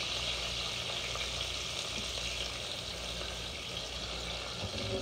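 Bacon frying in a pan, a steady sizzle over a faint low hum.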